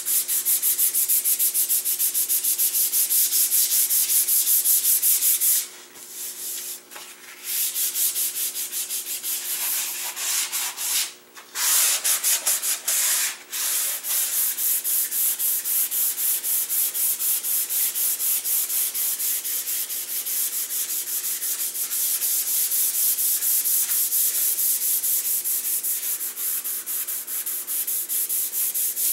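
Sandpaper rubbed over red oak in quick, even back-and-forth strokes, stopping briefly about six seconds in and again about eleven seconds in.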